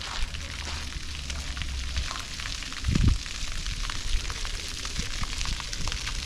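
Outdoor street ambience: a steady hiss full of small crackles, with a brief low thump about three seconds in.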